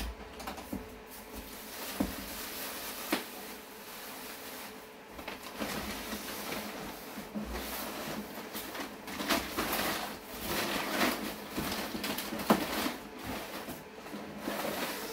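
Plastic packing wrap and cardboard rustling and crinkling as hands dig through a packed cardboard box, with a few sharp knocks now and then.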